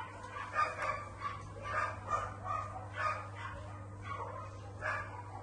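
Short animal calls repeated about every half second, over a steady low hum.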